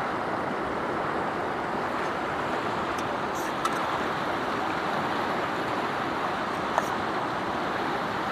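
Fast mountain river rushing over rocks, a steady even rush of water, with a few light clinks of a metal spoon against the camping cooking pot.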